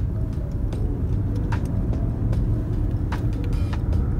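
Steady low road and engine rumble inside a moving car's cabin, with a few light clicks scattered through it.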